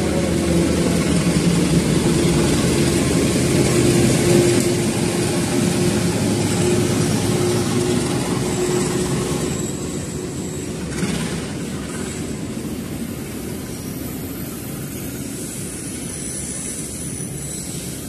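Diesel locomotive hauling a freight train of green cargo wagons passing close by: a steady engine drone over the rumble of wheels on rails, easing off after about ten seconds as the wagons roll past.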